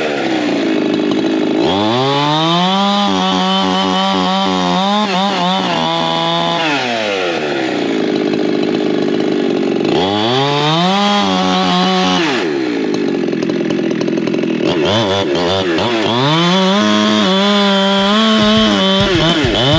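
Two-stroke gas chainsaw bucking logs: it revs up from idle, holds at full throttle with its pitch sagging and wavering as it cuts through the wood, then drops back to idle, three times in a row.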